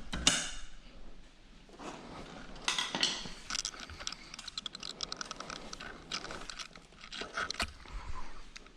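Metal hand tools clinking and clicking while working on a motorcycle, with a ringing metallic clink just after the start and runs of quick clicks in the middle.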